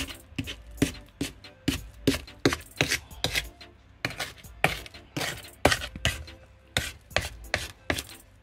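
Wooden spoon scraping creamed butter and sugar down the sides of a ceramic mixing bowl and around the mixer beaters, knocking against bowl and beaters about two to three times a second.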